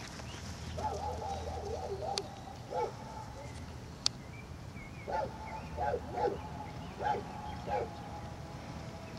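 German Shepherd dog barking: a quick run of short barks about a second in, then more spaced barks from about five seconds in. A single sharp click about four seconds in.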